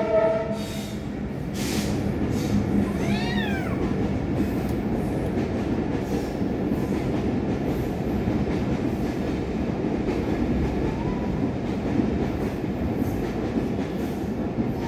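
Two tomcats yowling at each other in a fight standoff: drawn-out calls that rise and fall, at the start, about three seconds in and again at the end. Under them runs a steady low rumble.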